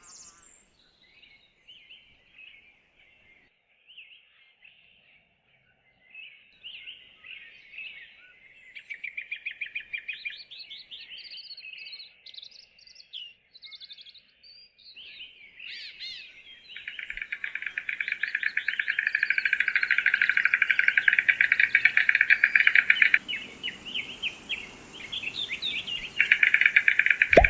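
Birds calling with scattered chirps and short trills. About two-thirds of the way in, a louder, rapidly pulsing trill takes over, breaks off briefly, then resumes near the end.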